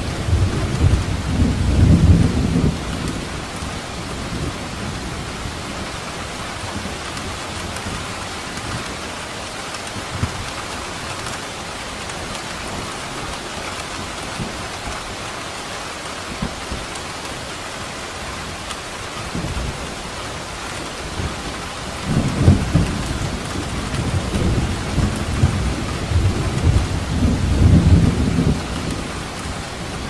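Steady heavy rain hiss with rolling thunder: a low rumble over the first few seconds, then the thunder returns about two-thirds of the way through and swells twice before fading near the end.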